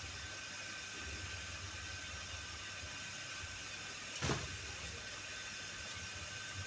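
Steady low background hiss and hum with a faint steady high tone, and a single short click about four seconds in.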